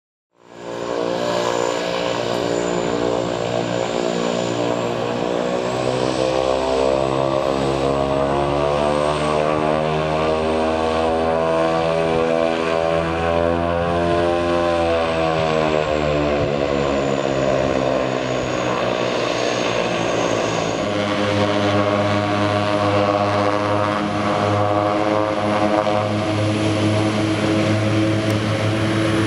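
de Havilland Canada DHC-6 Twin Otter's twin turboprop engines and propellers running as the aircraft taxis: a steady propeller hum with a thin high turbine whine above it. It starts suddenly about half a second in, rises in pitch toward the middle, eases back, and changes tone about 21 seconds in.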